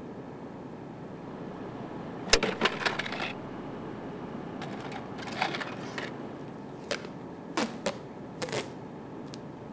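A run of sharp clicks and knocks over a steady low hum: a quick cluster a couple of seconds in, another near the middle, then single knocks every half second or so toward the end.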